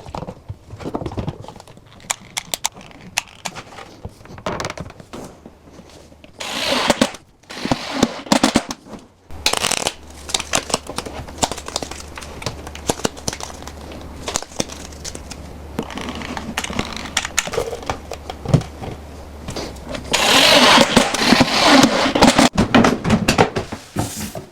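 Carpentry work sounds while cabinets are being set: scattered knocks and clatter, with short noisy bursts and a louder, denser stretch of noise near the end.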